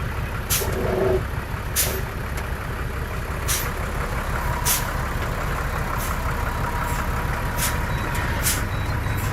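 Heavy diesel earthmoving machinery running steadily, with short sharp noises breaking in about every second or so, unevenly spaced.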